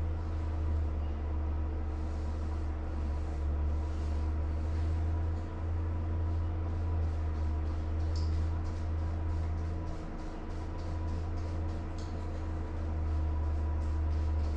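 A steady low mechanical hum runs throughout. Over it, a paintbrush swishes on drywall in quick back-and-forth strokes, about three or four a second, through the second half.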